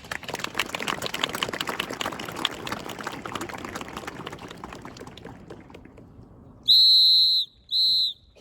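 Applause dying away after a drum-and-cymbal performance, then a drill leader's whistle: one long blast and one short blast.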